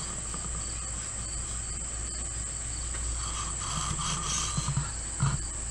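Steady high-pitched trilling of insects, likely crickets, over a faint low rumble, with a brief knock near the end.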